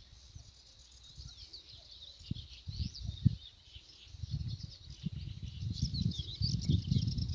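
Small birds chirping and singing in quick, overlapping calls, with an irregular low rumble that grows louder in the second half.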